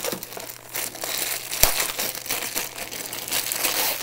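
Clear plastic wrapping crinkling and crackling as hands pull a fabric knife pouch out of it, with one sharp knock about one and a half seconds in.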